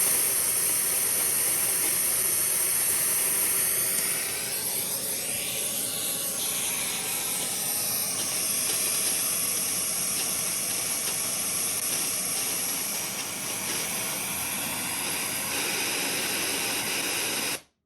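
Loud, steady static hiss from the S/PDIF optical output of an Asus ROG Strix Z590-E motherboard's Realtek ALC4080 audio, drowning out the playback. This is the known firmware fault that makes S/PDIF playback noisy. The noise cuts off suddenly near the end.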